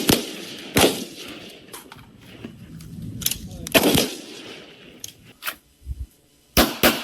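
Firearm gunshots at irregular spacing: a quick pair at the start, single shots about a second and about four seconds in, and another quick pair near the end, with fainter cracks between.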